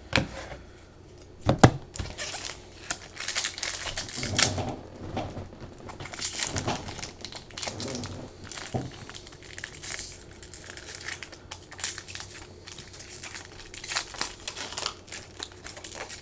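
Trading card pack wrappers being torn open and crinkled, with irregular crackling and rustling throughout. A single sharp knock about a second and a half in is the loudest sound.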